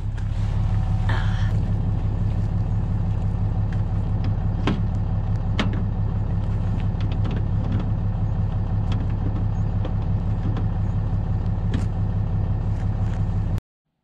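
Pickup truck engine idling steadily with a low hum, with a few sharp clicks and knocks of handling over it.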